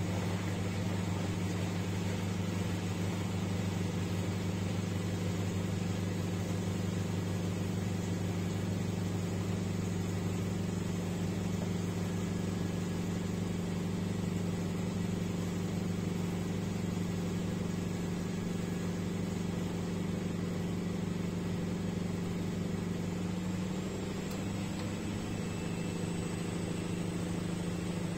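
1994 Bompani BO27027 washer-dryer running mid-cycle: a steady low motor hum with water in the drum, changing slightly near the end.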